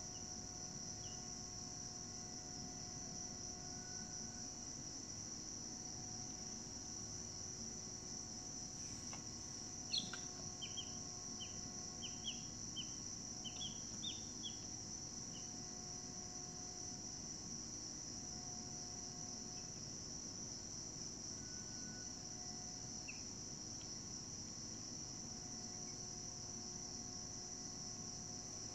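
Steady high-pitched chorus of crickets, continuous and unchanging. About ten seconds in, a bird gives a quick run of a dozen or so short high chirps, starting with a sharp click.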